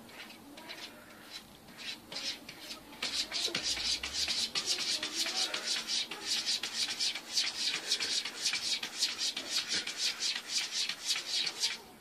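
Rhythmic rasping strokes, about three a second: sparse and faint at first, then a steady, louder run from about three seconds in that stops abruptly near the end.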